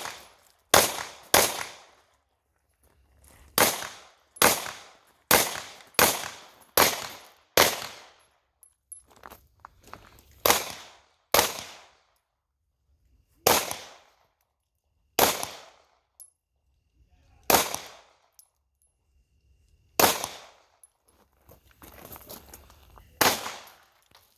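Pistol shots fired at an uneven pace, about fifteen in all: quick strings of shots a little under a second apart in the first eight seconds, then single shots a second or more apart, with pauses of two to three seconds later on.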